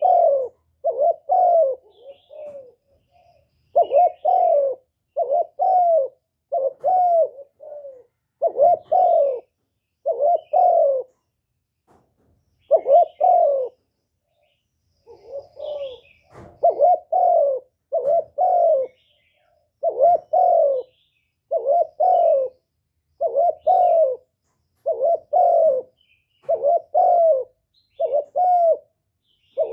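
Spotted dove cooing its song: a steady run of repeated low, mellow coo phrases of several notes each, with a pause of a few seconds about halfway through.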